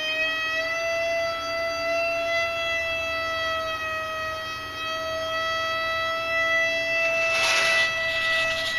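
A singing toilet: one steady, horn-like tone with many overtones. It rises slightly in pitch in the first second and then holds, and has been going non-stop for hours. A brief hiss rises over it near the end.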